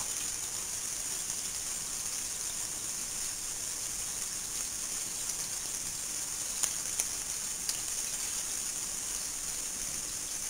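Water spraying steadily into a bathtub, a continuous hiss, with a few faint clicks a little past the middle.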